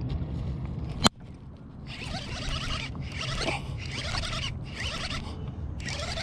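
A fishing reel being cranked in short bursts with brief pauses, its gears giving a rattling, ratchet-like whir, as a topwater lure is worked back. A single sharp click comes about a second in.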